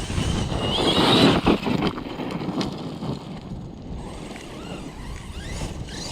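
Electric RC truck's brushless motor whining up in pitch as it accelerates about a second in, with a loud rush of tyre and dirt noise, then running fainter.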